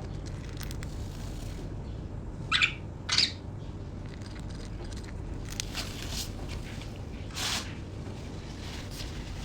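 Budgerigars calling: two short, sharp chirps in quick succession about two and a half seconds in, and another softer one later, over faint light clicks of the birds pecking at their food.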